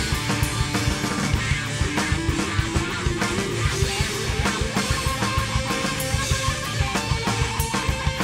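Rock band playing an instrumental passage: electric guitar and bass over a busy drum-kit beat, with a guitar line climbing in pitch a couple of seconds in.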